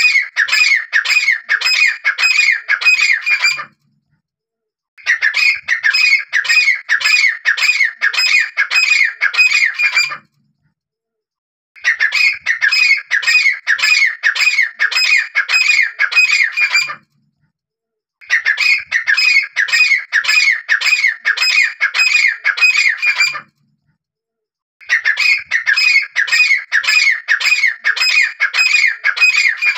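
Grey francolin calling, the hunters' lure call: bouts of about five seconds of loud, shrill notes repeated about twice a second, broken by short gaps of silence.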